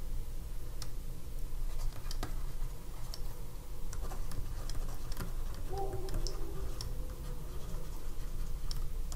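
Stylus tapping and scratching on a drawing tablet while handwriting words, a scatter of small sharp clicks over a steady low hum.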